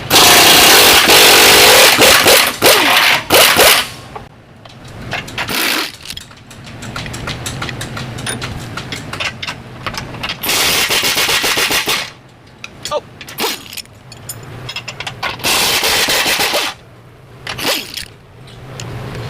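Power impact tool hammering in loud bursts: a long burst of about two seconds at the start, a longer one around the middle and another near the end, with shorter blips between, during front-suspension teardown. Quieter metal clinks from tools and parts come in the gaps.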